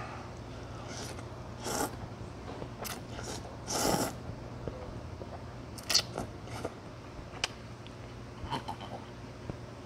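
A man slurping up mouthfuls of noodles from Jeju-style pork noodle soup and chewing, in a string of short wet slurps, the longest and loudest about four seconds in.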